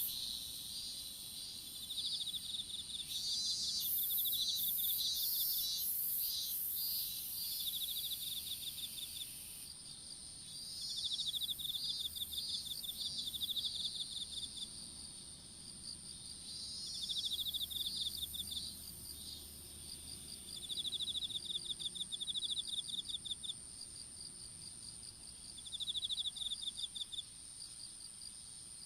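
Field insects chirping: a steady high-pitched ring goes on throughout, while rapid pulsed trills come and go in bouts of a few seconds each.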